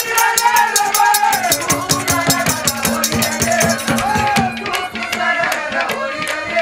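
Instrumental interlude of Haryanvi ragni folk music: a fast, even rattling percussion beat, about six strokes a second, under a bending melody and a steady drone.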